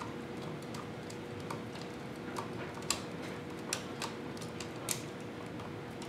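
Screwdriver tightening a brass terminal screw on an electrical outlet: a few faint, scattered clicks and ticks.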